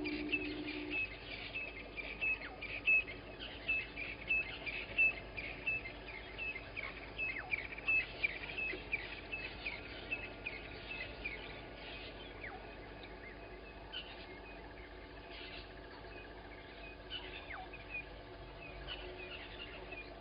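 Wild birds calling at dawn: a bird repeats a short high note several times a second, with a few other calls behind it. The series thins out about halfway through, leaving scattered chirps. A lower call fades out in the first second.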